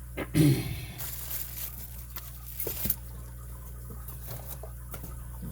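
A package being unwrapped by hand: rustling and tearing of the wrapping. There is a louder handling bump about half a second in, then a few small knocks and clicks.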